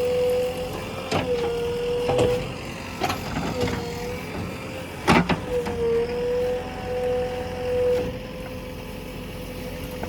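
JCB 3DX backhoe loader working, with a steady whine that sags briefly in pitch several times over its running engine. Several sharp metallic knocks come through it, the loudest about five seconds in.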